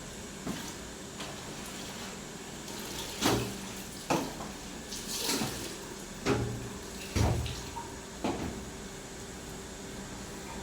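Dishes and utensils knocking and clattering at a sink, about seven separate sharp clatters, with a short rush of water about five seconds in.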